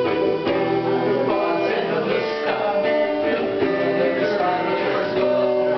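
Electronic keyboard and guitar playing a tune, with held notes changing in a steady melody.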